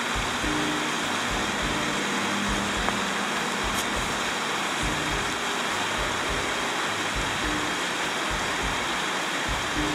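Steady rushing wind with irregular low buffeting on the microphone, under quiet background music with held low notes.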